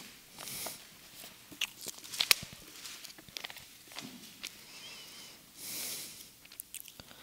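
Bible pages being leafed through: soft paper rustles, two longer swishes among them, with scattered light clicks and taps.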